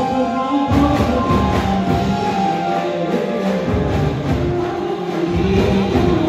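Garba music for Navratri: singing with a melody line over a steady drum beat.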